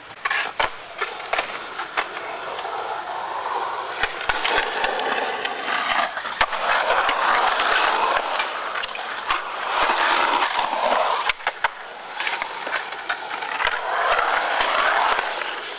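Skateboard wheels rolling on concrete, swelling louder several times as boards pass close, with sharp clacks of boards hitting the ground.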